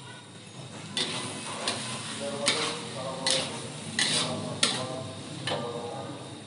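Spatula scraping and stirring in a pan of frying food, about seven sharp strokes, over a light sizzle.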